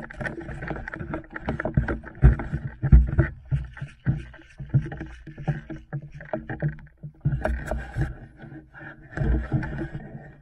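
Movement and handling noise of a player on the move carrying an airsoft rifle: irregular thumps and knocks from footsteps and the gun and gear jostling, with rustling between them.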